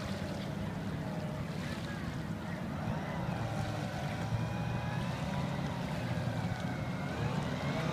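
Outboard engines of small racing hydroplanes running at speed across the lake: a high whine that wavers up and down in pitch over a low hum, slowly getting louder toward the end.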